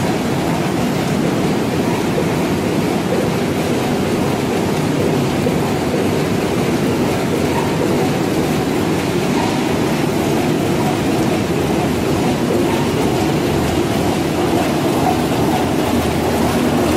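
Mushroom processing line machinery running: a steady mechanical rattle and hum from conveyors and a washing tank.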